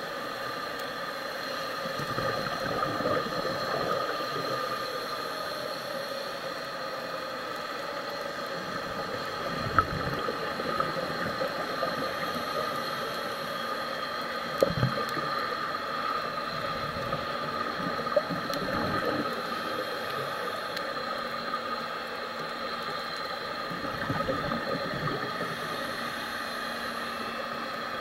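Underwater sound of scuba divers breathing through their regulators: a gurgling rush of exhaled bubbles swells every four to five seconds over a steady hum, with a few sharp clicks.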